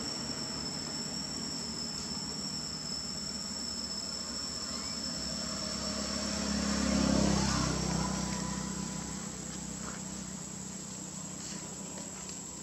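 Steady high-pitched insect drone over a forest background, while a low engine hum swells to its loudest about seven seconds in and fades away. A few light clicks near the end.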